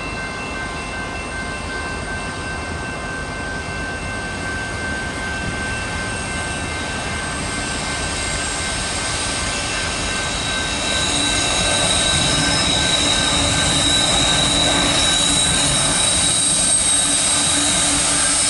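Eastbound freight train approaching behind a GE ET44AC diesel locomotive, its engine and wheel noise getting louder, with a rise about eleven seconds in. Several steady high-pitched tones sound over the rumble.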